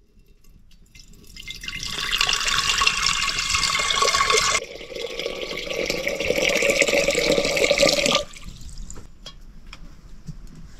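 Water poured in a stream into an aluminium cooking pot, building up over the first two seconds. The sound changes suddenly about halfway through, then cuts off abruptly about eight seconds in.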